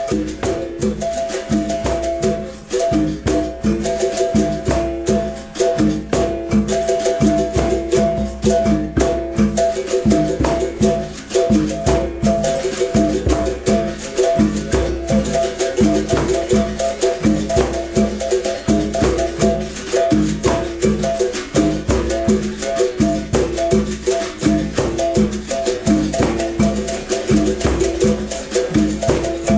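Berimbau music: the twang of the struck steel string on a few steady notes, with the caxixi shaker rattling along in a quick, even rhythm.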